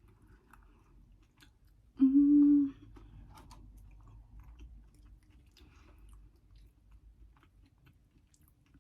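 Close chewing and soft mouth clicks of someone eating, with one short, loud closed-mouth 'mmm' hum about two seconds in.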